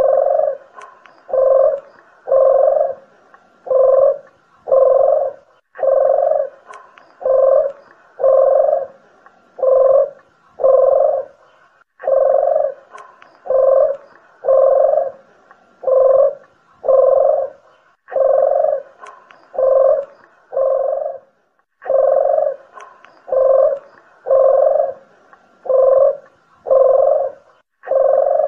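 Collared doves, puter geni (barbary dove) and deruk jawa (Sunda collared dove), cooing: a steady run of low, rounded coos, about one and a half a second, in runs broken by short pauses every few seconds. It is a bird-lure (pikat) call recording.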